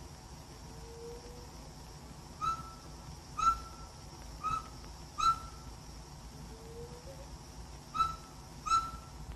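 A bird calling in short, clear whistled notes: four about a second apart, then two more near the end.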